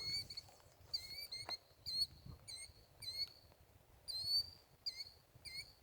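A small animal chirping outdoors: a string of short, sharp, high chirps, about two a second, faint.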